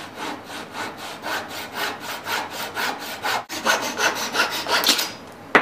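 A flush-cut hand saw sawing through the protruding end of a wooden bow tie key to trim it flush with a slab, in quick, even strokes of about four a second. There is a brief break about three and a half seconds in, and a sharp tap comes at the very end.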